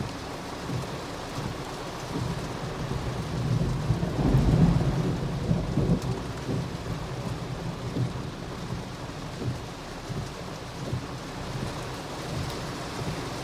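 Torrential rain beating steadily on a car's roof and windshield, heard from inside the car. A low rumble swells about four seconds in and fades away a couple of seconds later.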